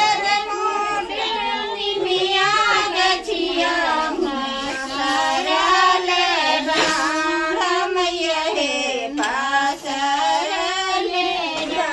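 Women singing a devotional folk song to the goddess (a Mata Rani geet) together, in long held, wavering melodic lines.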